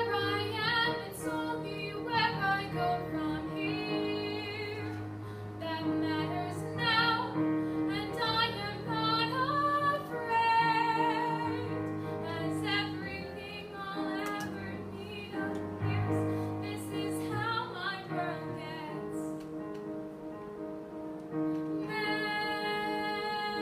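A teenage girl singing a musical-theatre song solo in a high register over piano accompaniment, ending on one long held note.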